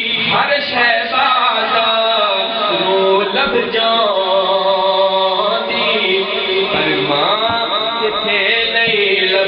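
A male reciter singing a naat, Urdu devotional poetry in praise of the Prophet, in long, drawn-out melodic phrases with wavering, ornamented pitch.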